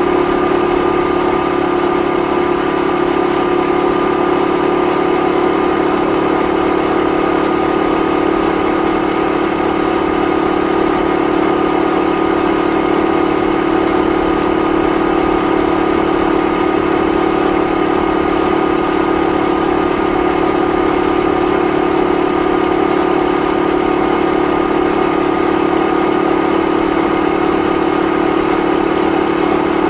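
Honda Super Cub 50 (AA01, carburetted) 49 cc four-stroke single-cylinder engine and exhaust, heard from the rider's seat while cruising at a steady speed. It holds one steady pitch throughout, with no revving or gear changes.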